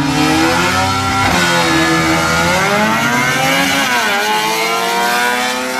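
Drag race car engine accelerating hard down the strip, its pitch climbing, dropping sharply at a gear change about four seconds in, then climbing again.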